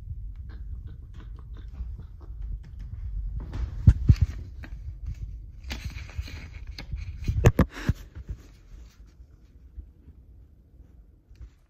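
Handling noise from a hand-held phone: low rumble and rustle as it rubs against a sweater, with a few sharp knocks about four and seven and a half seconds in, dying down near the end.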